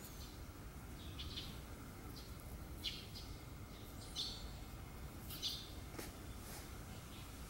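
Birds chirping faintly: a handful of short, high chirps a second or so apart, one rising and falling about four seconds in, over a steady low outdoor rumble.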